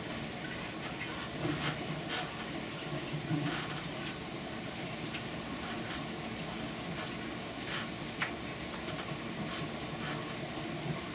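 Steady running water trickling through an aquaponics NFT system's pipes. Several short sharp snaps and rustles are heard as old strawberry leaves are pulled off the plants by hand.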